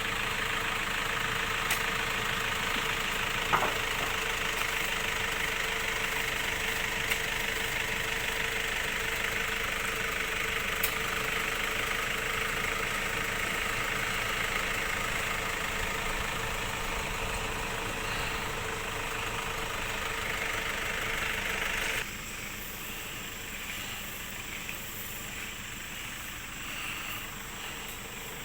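A vehicle engine running steadily, heard from on board. About two-thirds of the way through, the sound drops suddenly and carries on quieter.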